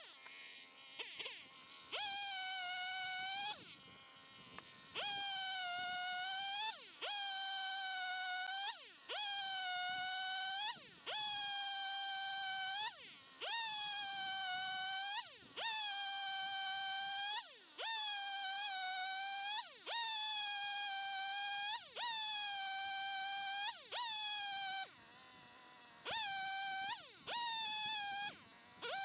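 Chainsaw cutting firewood at high revs, its note dipping in pitch and recovering about once a second as the chain bites into the log.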